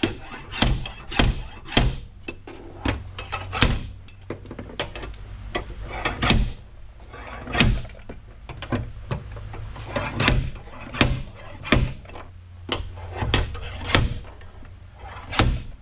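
Steel slide hammer, a 12-pound weight, slammed again and again against its end stop to pull a crushed car door skin off the hinges: sharp clacks about one to two a second at uneven spacing, over a steady low hum.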